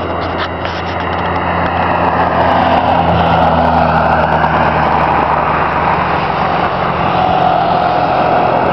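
Airbus A320 jet engines running loud as the airliner comes in to land, the roar building over the first couple of seconds and then holding steady, with a high whine sliding down in pitch.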